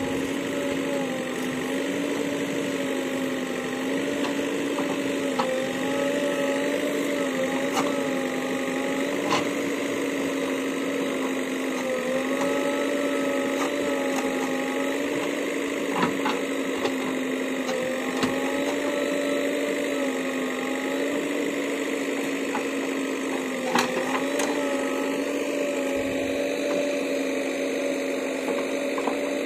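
JCB backhoe loader running steadily with a high, even whine from its engine and hydraulics. The pitch sags briefly every few seconds as the load comes on, and occasional sharp knocks sound through it.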